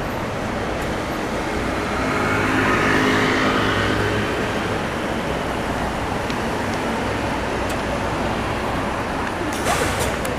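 Road traffic noise, with one vehicle's engine swelling as it passes about two to four seconds in, and a brief sharp clatter near the end.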